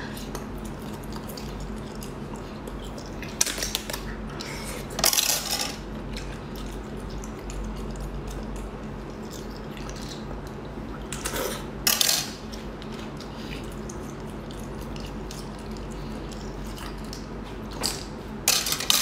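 Close-up eating noises as small sea snails are pulled off skewers and eaten: about five brief, sharp slurping and clicking bursts, spaced irregularly, over a faint steady hum.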